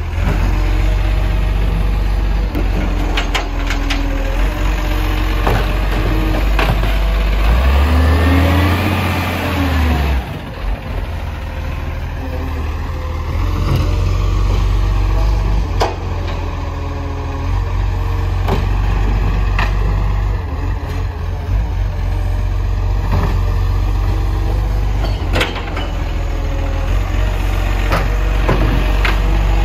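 Garbage truck's diesel engine running, revving up and back down about eight seconds in, with scattered sharp knocks and clanks.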